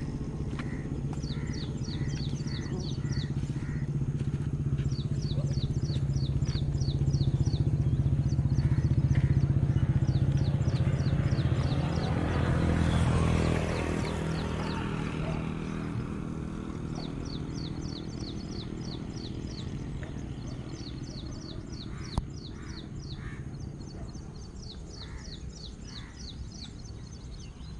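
A motor vehicle's engine hum that grows louder, passes closest about thirteen seconds in with a rush of noise, then fades away. High chirping in quick repeated runs sounds throughout.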